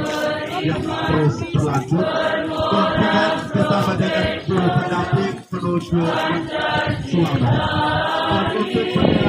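A group of voices chanting or singing in unison, in held phrases of about a second each with short breaks between them.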